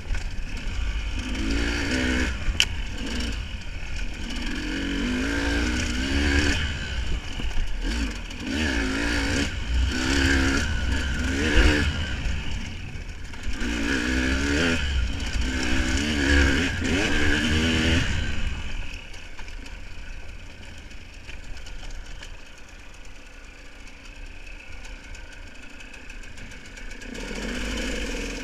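An engine revving up and down again and again over a steady low rumble, dropping to a quieter rumble after about two-thirds of the way through.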